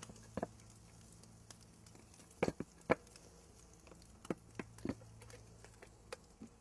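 Scattered light clicks and knocks, about eight, from containers and utensils being handled by a saucepan on a cutting board, the sharpest a couple of seconds in.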